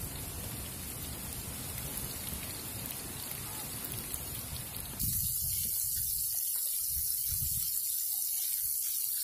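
Marinated fish pieces sizzling as they fry in hot sunflower oil in a kadai, with faint spattering pops. About five seconds in the sound changes suddenly to a louder, brighter hiss.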